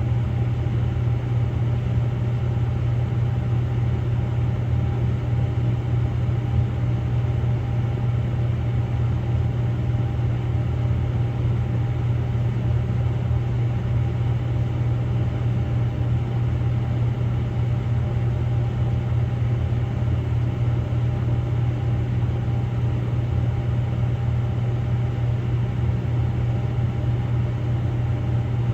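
Samsung Grande AI front-loading drum washing machine on its spin-only course, the drum spinning at a steady speed: an unchanging low hum with a faint steady whine above it.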